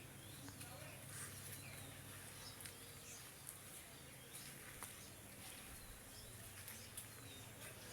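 Faint outdoor rural ambience with scattered short, faint bird chirps and a few light ticks over a steady low hum.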